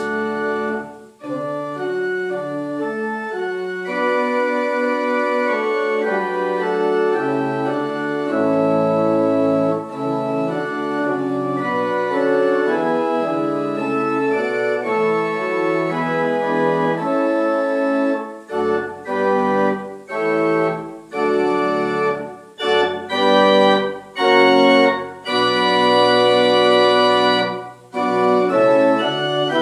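Organ music playing in held chords that move from one to the next; a little past the middle of the stretch it turns to shorter chords separated by brief gaps.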